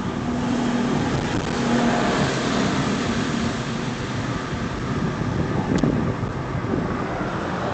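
Car driving along a street: steady engine hum and road noise, with a single brief click about six seconds in.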